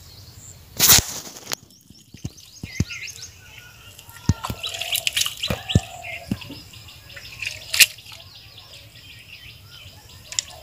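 Wet mud squelching and slapping as hands dig and pull in soft mud, in a string of sharp wet smacks, the loudest about a second in. Small birds chirp throughout.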